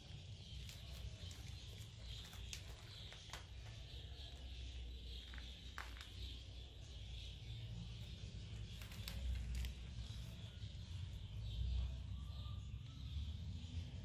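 Scattered soft crackles and clicks of foil bubble insulation as newborn kittens shift and squirm on it, over a steady low rumble.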